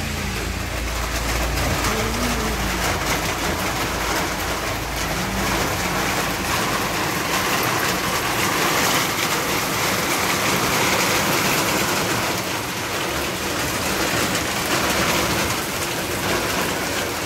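Heavy rain falling steadily on a tiled courtyard and roof: a dense, even hiss of rain.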